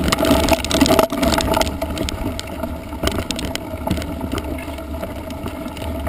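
Mountain bike rolling over a stony dirt track: knobby tyres crunching on gravel and the bike rattling in frequent short clicks, under a low rumble of wind buffeting the camera's microphone. It is loudest in the first second or so, then eases a little.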